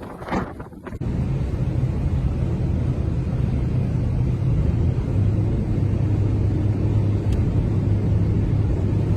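A vehicle engine running with a steady low rumble and a droning hum, starting after a cut about a second in.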